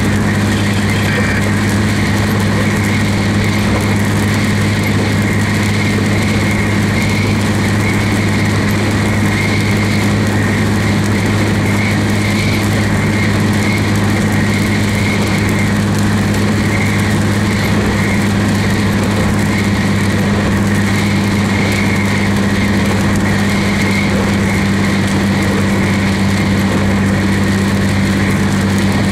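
Car driving on a wet road, heard from inside the cabin: a steady low hum of engine and tyres with an even hiss over it.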